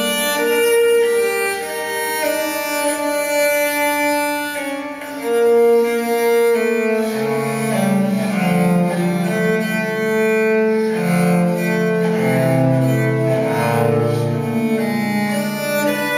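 Recorded string music, cello and violin, played back through Infinity Alpha 30 hi-fi loudspeakers. Long held notes throughout, with deeper cello lines coming in about seven seconds in.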